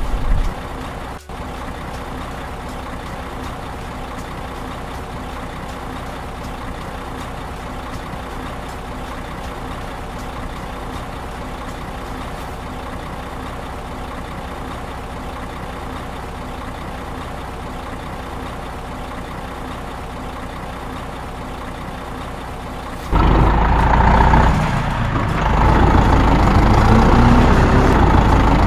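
A truck's diesel engine running steadily at idle. About 23 seconds in, a much louder, busier mechanical sound cuts in and carries on to the end.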